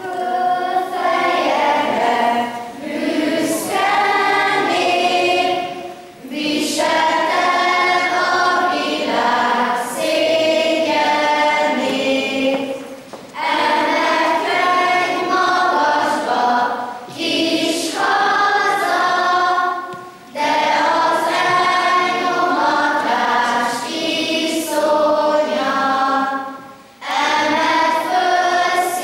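A children's choir singing a song in long phrases of about seven seconds, with a short pause for breath between each.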